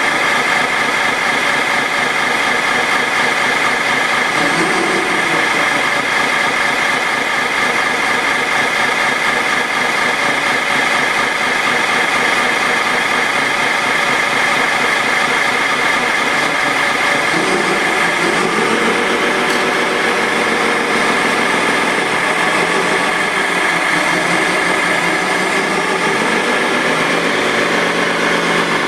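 Radio-controlled Komatsu wheel loader at work: a steady mechanical drone with a high whine from its motors and hydraulics. The pitch rises and falls for a few seconds about two-thirds of the way through as the loader moves.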